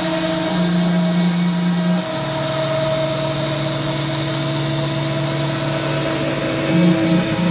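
Desktop CNC machine with a Dremel rotary tool spindle running, giving a steady motor whine and hum. The pitch steps down about two seconds in and wavers briefly near the end, as the machine's motion changes.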